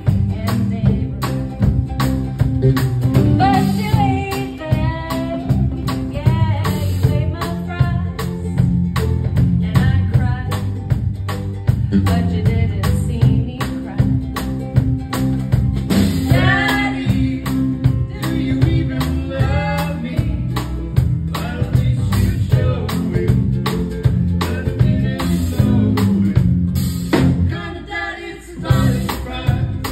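Live song: a woman singing over strummed ukulele and electric guitar, with a steady beat.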